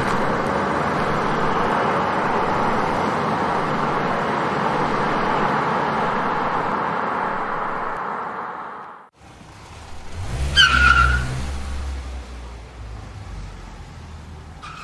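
Car sound effect: a car running steadily for several seconds, then a sudden cut, followed by a short tyre squeal over low engine rumble as a car pulls away, fading out.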